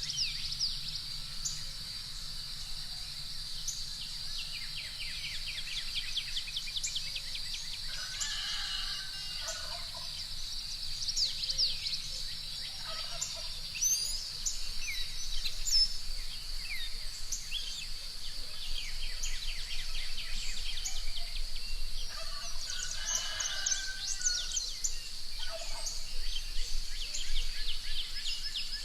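Morning bird chorus: many small birds chirping in rapid trills over a steady high-pitched hum, with domestic fowl calling a few times in the distance.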